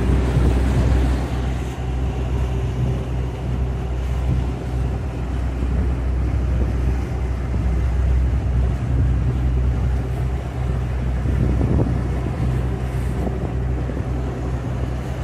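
Motor yacht under way: the steady drone of its engines, with water rushing along the hull and wind buffeting the microphone.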